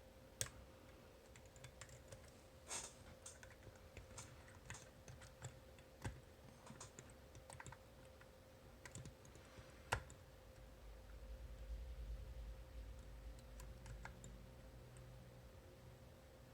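Faint, irregular small clicks and ticks of a homemade pick turning the disks inside an Abloy Classic disc-detainer cam lock, with a sharper click now and then and a low rumble about two-thirds through.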